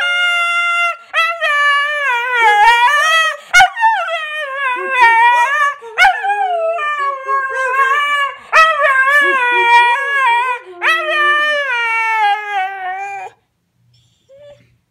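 Siberian husky howling in a string of long howls, about six of them, the pitch wavering and sliding up and down. The howling stops about 13 seconds in.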